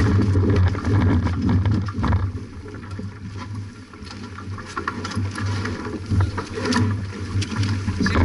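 Wind buffeting the microphone aboard a J/24 sailing yacht under way, a gusting low rumble over a steady rush of water along the hull, with small knocks and clicks from the boat.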